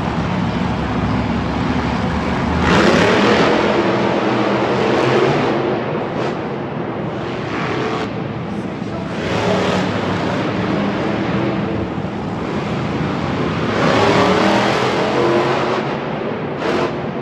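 Monster truck engines revving hard as the trucks drive the dirt track, with three loud surges of rising engine pitch, about three seconds in, near ten seconds and again around fourteen seconds, over a steady engine background in the large stadium.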